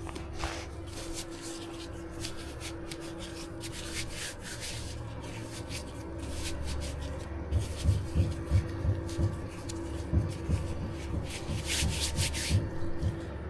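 Dumpling dough being kneaded by hand on a board: soft rubbing and pressing, which turns about halfway through into a run of dull thuds, about three a second.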